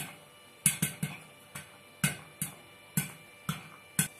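Popcorn kernels popping inside a closed aluminium pressure cooker, each pop a sharp drum-like 'dum' against the lid and walls. The pops come irregularly, about two a second, as the batch nears done.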